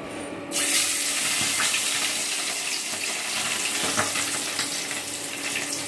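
Turmeric-marinated tengra fish (small catfish) going into hot oil in a kadai, frying with a sudden loud sizzle about half a second in and crackles of spattering oil.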